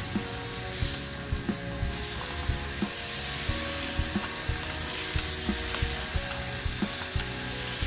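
Hand trigger spray bottle being squeezed over and over, each pull a short spritz of mist with a small knock, about two a second, over a steady hiss.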